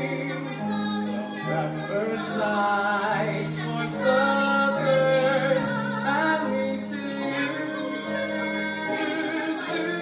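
Show tune from a live stage-musical performance: singing with vibrato over an accompaniment whose bass steps from note to note, recorded from the audience.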